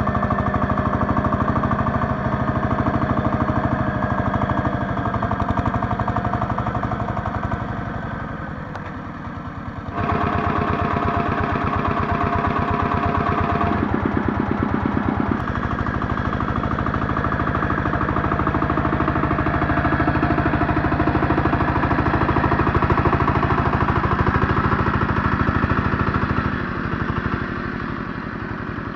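Scout T-12 minitractor engine running steadily while it drives a rear rotary tiller through garden soil. The sound sags a little about eight seconds in, then comes back abruptly louder at about ten seconds.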